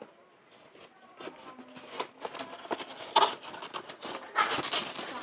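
Cardboard box and white foam packing pieces rubbing and scraping as hands work a boxed impulse plastic sealer loose, in a run of short, uneven rustles that start about a second in and get louder toward the end.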